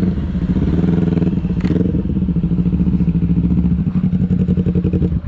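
Motorcycles running at low speed on a dirt track, a steady engine note that turns to a rapid pulsing toward the end as the bikes slow to a stop.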